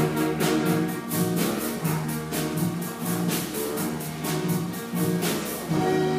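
Live band music with a steady beat of drum and cymbal hits under full chords, ending on a held chord near the end.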